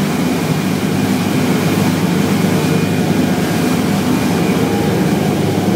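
Motor yacht under way: its engines run with a steady low drone, mixed with wind rushing past.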